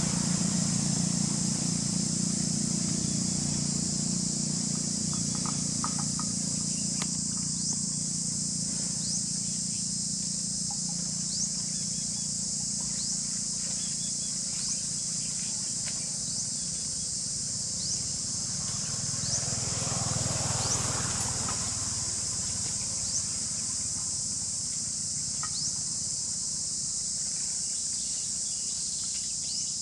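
Steady high-pitched drone of insects over a rural field, with a short rising chirp repeating every second or two. About twenty seconds in, a louder rustling swish rises and fades.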